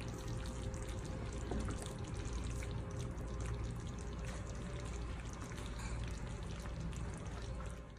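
Steady low hum and hiss of kitchen room noise with faint scattered clicks, dropping away at the very end.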